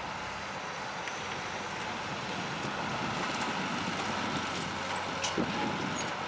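Caterpillar hydraulic excavator's diesel engine running steadily as it demolishes a building, with a few faint knocks and clatters of debris.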